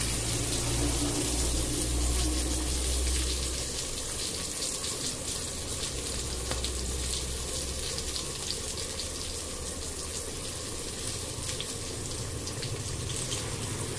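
Potol-chingri curry (pointed gourd, potato and prawns) simmering in a kadai: a steady hiss with many fine crackling pops, and a low rumble over the first three seconds or so.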